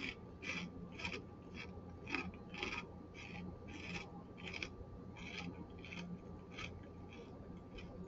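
Close-up chewing of a Ponsuke nori-and-salt Japanese rice-cracker snack: a light crunch about twice a second, growing fainter toward the end as the mouthful breaks down.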